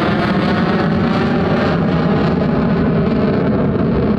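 Loud, steady roar of a fighter jet's engine, its high hiss slowly fading as the jet moves away.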